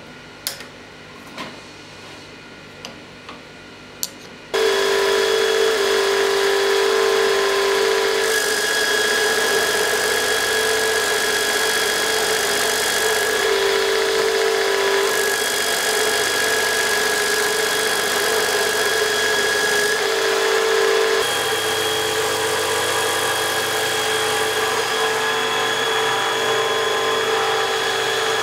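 A few light metallic clicks and taps, then about four seconds in an old surface grinding machine is heard running loudly with a steady mechanical whine and hum, its tone shifting slightly later on.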